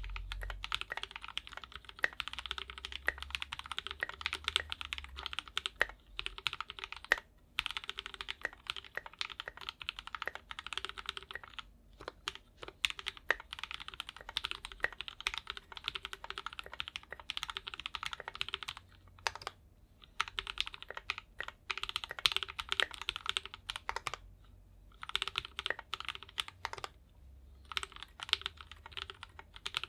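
Mechanical keyboard with Gateron Full Milky Yellow linear switches on a KBDFans 5 Degree board, typed on in fast continuous runs of keystrokes with a few brief pauses.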